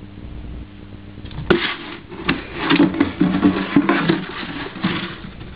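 Empty plastic cooking-oil container being knocked and pushed across a wooden floor by a puppy: a sharp knock about a second and a half in, then a run of knocks and scrapes.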